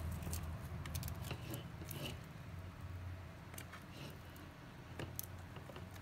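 Faint handling noises from the laptop and its power cable: a few light clicks and taps, the clearest about one, two and five seconds in, over a low steady hum.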